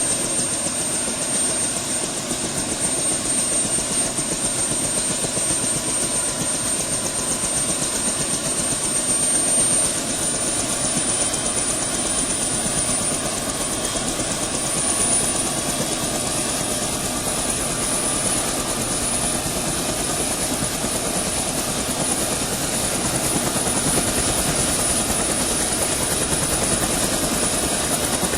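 Helicopter starting up: the engine whines and the rotor blades spin with a fast steady beat. The high whine steps up in pitch about nine or ten seconds in and keeps creeping higher as the machine spools up.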